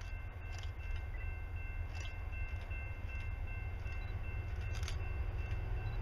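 Diesel-powered freight train approaching in the distance: a low steady rumble growing slightly louder, with a faint steady high-pitched whine over it and a few brief high ticks.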